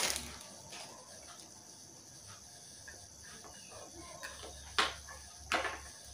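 Two sharp knocks, a little under a second apart, against a faint steady background.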